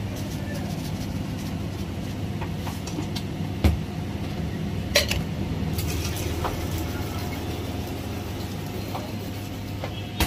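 Steady low hum of shop machinery, with a few sharp knocks and clinks of utensils and containers on the counter, two loud ones around the middle.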